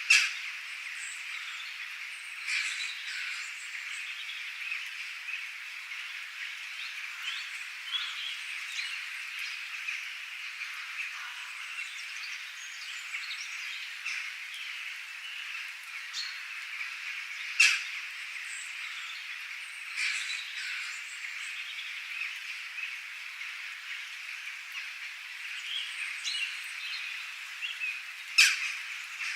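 Nature ambience of birds chirping and calling over a steady background chorus. Three loud, sharp calls stand out: one at the very start, one about 18 seconds in, and one near the end.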